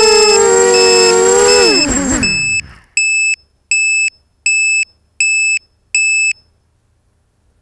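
250-size FPV racing quadcopter's electric motors whining loudly, then spinning down with a falling pitch about two seconds in as the drone comes to rest on the ground. An electronic beeper then sounds five short beeps about three-quarters of a second apart.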